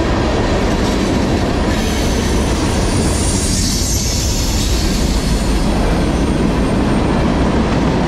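Tank cars of a CSX freight train rolling past close by: a loud, steady rumble of steel wheels on the rails. About three seconds in, a brief high-pitched wheel squeal rises over it.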